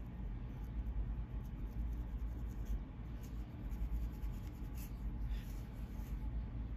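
Fine-tooth plastic comb scratching over a dry, flaky scalp in short, irregular strokes, lifting dandruff, over a steady low rumble.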